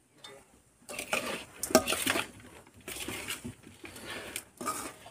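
Perforated stainless steel spoon scraping and clinking against a stainless steel bowl as a moist mixture of shredded banana flower and potato is stirred, in a series of irregular strokes starting about a second in.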